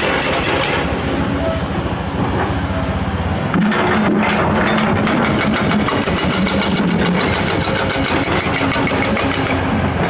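Diesel excavator engines running under load. From about three and a half seconds in, a hydraulic rock breaker starts hammering limestone in a fast, even stream of blows.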